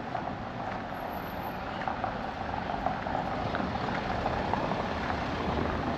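Steady street noise with a motor vehicle running.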